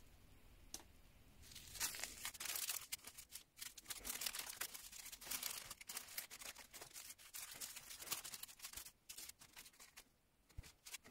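Small plastic zip bags of diamond-painting drills crinkling and rustling as hands sort through a pile of them. It starts about a second and a half in as dense irregular crackling and dies away just before the end.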